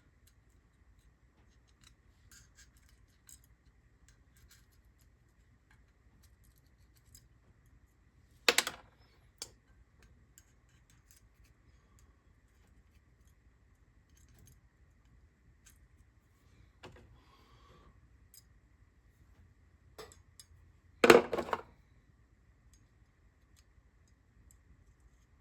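Small metal parts and hand tools clicking and tapping on a cylinder head while valve keepers are fitted, with a sharp metallic clack about a third of the way in and a louder quick clatter of clacks near the end.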